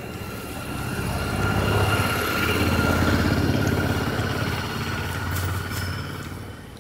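A motor vehicle's engine passing by, growing louder to a peak two to three seconds in and then fading away.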